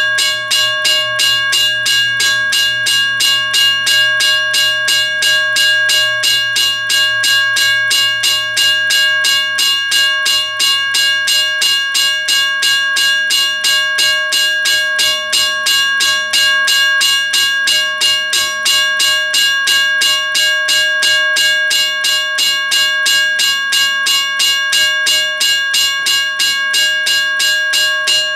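WRRS 1203 mechanical railroad crossing bell ringing loudly and continuously, its hammer striking the gong in a rapid, even rhythm so the bell's ringing never dies away between strokes.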